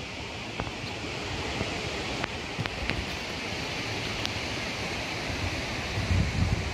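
Steady rushing of wind through the trees, with gusts buffeting the microphone about six seconds in.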